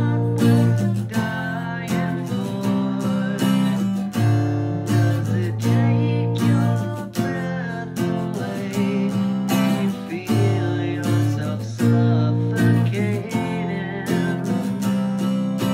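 Steel-string acoustic guitar strummed chord by chord in a steady rhythm.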